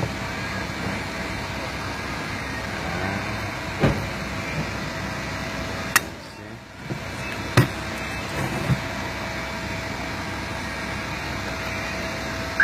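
Steady background hum with a faint steady tone, broken by a few sharp clicks and knocks. The loudest knocks come about halfway through, with a brief dip in the hum between them.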